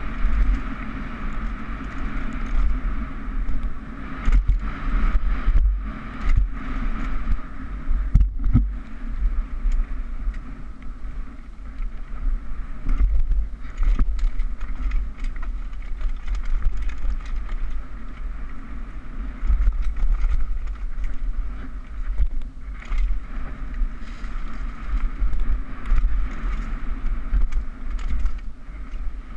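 Downhill mountain bike ridden fast over a dirt trail: a steady rumble of tyres and wind on the GoPro's microphone, with the bike rattling and knocking over bumps. Sharp knocks cluster from about four to nine seconds in.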